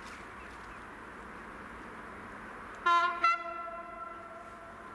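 Electric multiple unit's horn sounding two short blasts in quick succession about three seconds in, the second trailing off over the following second. Under them is a steady low hiss.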